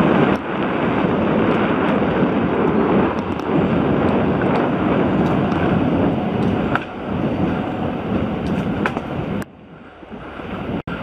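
Wind rushing over a helmet-mounted camera's microphone while a hardtail mountain bike's tyres roll fast over a dirt singletrack, with scattered small clicks and rattles from the bike. About nine and a half seconds in it turns much quieter, and it cuts out briefly just before the end.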